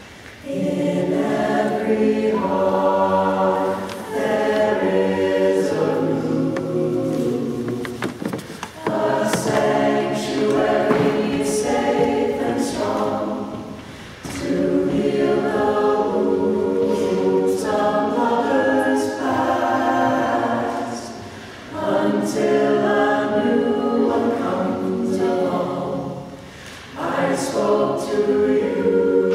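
A cappella choir singing a slow song in long held phrases, with a short breath between phrases every few seconds.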